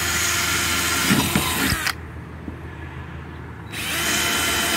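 Craftsman cordless drill boring pilot holes into an RV's fiberglass back wall: one run of about two seconds, a pause, then a second run starting near the end.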